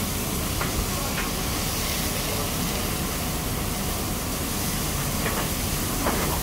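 Anchovies frying in oil in several pans over open gas burners: a steady sizzling hiss, with a few light metal clinks as pans and lids are handled.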